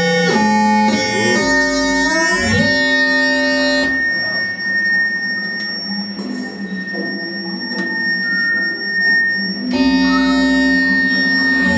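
Eurorack modular synthesizer playing electronic tones: a bright buzzy sound whose pitches slide up and down in the first few seconds, thins out in the middle and comes back full near the end, over a constant high tone.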